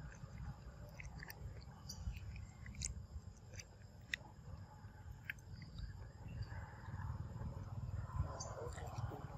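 A long-tailed macaque biting and chewing ripe papaya flesh close up, with irregular soft wet clicks and smacks.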